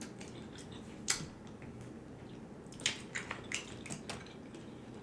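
Quiet eating sounds close to the microphone: a sharp click about a second in, then a run of small wet clicks and smacks, like mouth noises while chewing.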